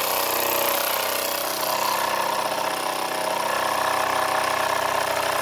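Wilesco toy steam engine running steadily: the single cylinder gives a fast, even chuffing with a hiss of steam as the flywheel spins.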